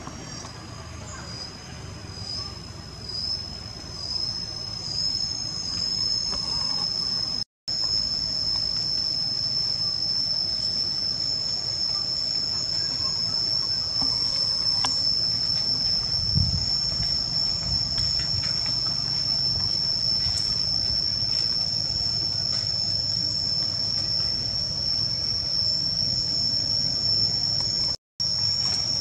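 Insects, cicadas or crickets, droning in one steady high-pitched tone. The sound breaks off completely for an instant twice.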